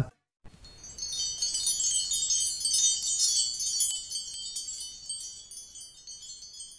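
Sparkling, high-pitched chime and shimmer sound effect of an animated logo sting, many quick tinkling tones that swell in about a second in and fade away toward the end.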